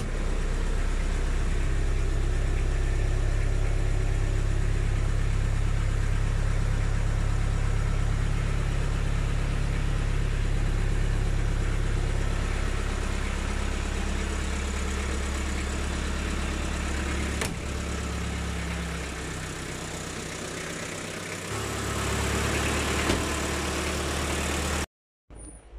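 Toyota Land Cruiser BJ40's four-cylinder diesel engine idling steadily.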